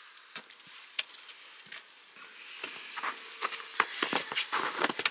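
Scattered light clicks and taps over a soft rustling, getting busier after about two and a half seconds.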